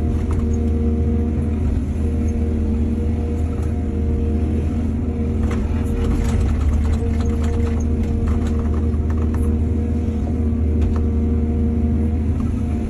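Heavy diesel engine of an excavator running steadily under a constant low drone, with a run of scattered clattering knocks in the middle.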